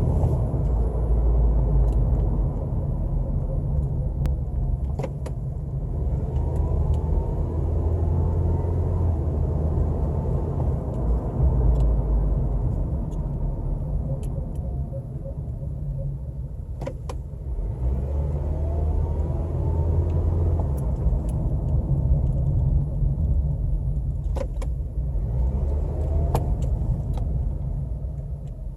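A car moving with a heavy low rumble, a few short rising tones and scattered sharp clicks, recorded to capture brakes making a weird noise.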